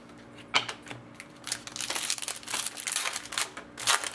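Foil wrapper of a Panini Rookie Anthology hockey card pack crinkling and tearing as it is opened and the cards are slid out. There is a run of crackles, busiest in the middle, with a sharp louder crackle near the end.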